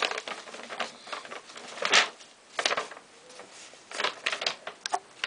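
Paper instruction sheet of a plastic model kit being unfolded and handled: scattered rustles and small clicks, the loudest rustle about two seconds in.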